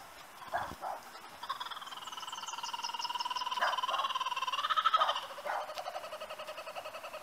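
Laughing kookaburra calling: a few short chuckles, then a long run of rapid laughing that builds to its loudest about five seconds in and trails off into lower chuckling.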